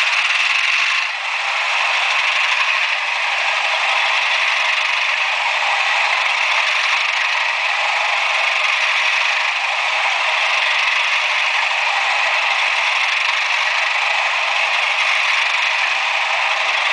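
Many model Class 37 locomotives' DCC sound decoders playing their diesel engine sounds together through small onboard speakers, a steady, dense mechanical din heard only in the middle and upper range, with no bass. The level dips briefly about a second in.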